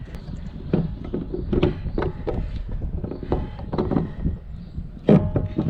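PVC plumbing fittings being handled and screwed onto a plastic rain barrel's bulkhead tee: a run of plastic clicks and knocks with a few short squeaks, the loudest knock and squeak about five seconds in.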